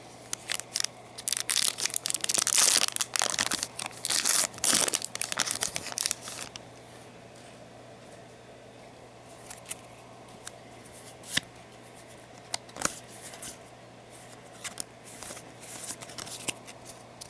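Foil booster packs of trading cards being torn open and crinkled: a run of tearing and rustling over the first six seconds or so, then occasional short rustles and light clicks. A steady low hum runs underneath.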